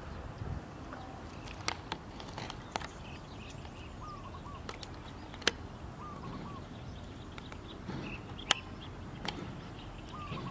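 A bird repeats a short, wavering call every two to three seconds over a steady background hiss. A few sharp clicks are scattered through it, and two of them are the loudest sounds.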